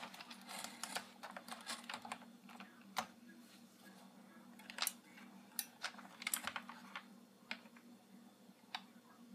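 Light, irregular clicks and taps of hard plastic toy parts and figures being handled and set in place on a plastic playset, some in quick little runs, others single.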